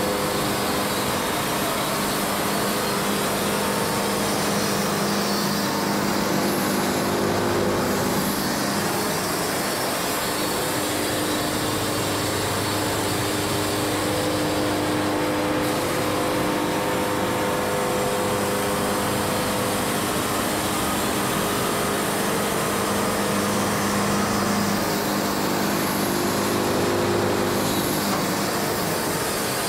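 Wood-Mizer LT70 band sawmill making a cut along a Kentucky coffee tree log. The blade is sawing through the wood while the mill's engine runs steadily under load, giving a continuous mechanical drone with a few steady tones that swell and fade.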